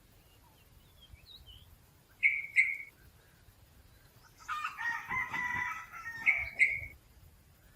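Red junglefowl crowing once, a harsh call of under two seconds that starts about halfway through. Just before and after it come two pairs of short, sharp, loud bird notes.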